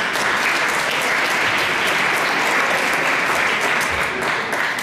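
Audience applauding in a large hall, steady dense clapping.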